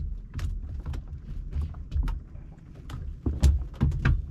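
Irregular knocks and clatter over a low rumble, with the loudest knock about three and a half seconds in.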